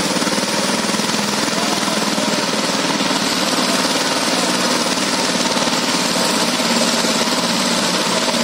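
Two-wheel power tillers' single-cylinder diesel engines running hard with a rapid, steady chugging, under load as they work to pull a straw-laden trolley free of the mud.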